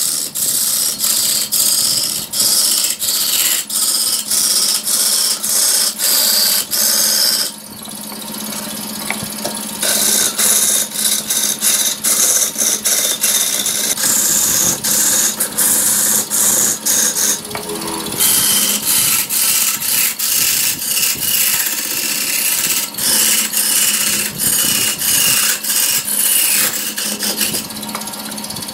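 Hand-held turning tool cutting into a large spinning log on a wood lathe and throwing off chips: a quick series of hissing, tearing cuts with short gaps between them, over a steady hum. The cutting stops for a couple of seconds about eight seconds in, and briefly again near the middle.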